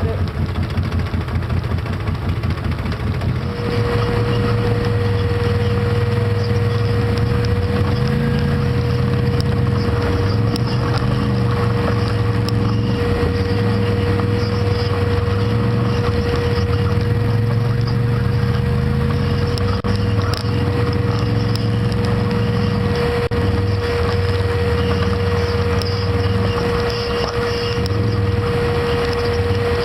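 Quad ATV engine running as it is ridden over a rough trail, its note rising and falling with the throttle. A steady high tone comes in about three seconds in and holds throughout.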